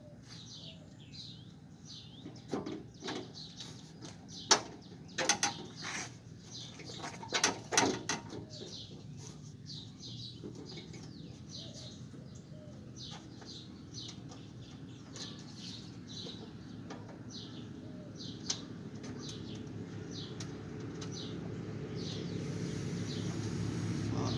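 A run of sharp knocks and clicks from a car fender being positioned and fastened, loudest in the first third, with birds chirping throughout. Near the end a passing vehicle's engine grows steadily louder.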